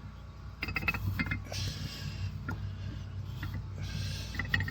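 Freshly rebuilt Honda engine being turned over by hand, its new piston and rings, cam gear and crank gears clicking and turning. There is a cluster of clicks about a second in and two short hissing rushes, about two seconds apart.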